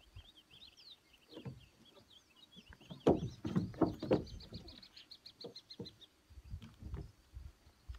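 Small birds chirping in the background, with a quick trill about four seconds in. Several dull knocks and thumps of footsteps and handling on wooden bridge planks, the loudest about three to four seconds in.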